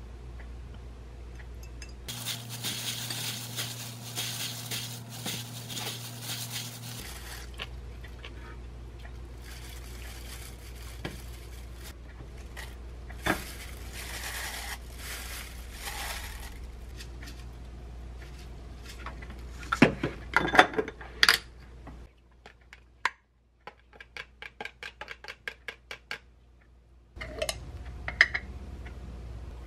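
Kitchen prep sounds: a spoon tossing seasoned bean sprouts in a glass bowl, with clinks of spoon, glass and a stainless steel tray. A steady hum with hiss runs for about five seconds early on, a few sharp clinks come a bit past the middle, and near the end there is a run of quick light ticks.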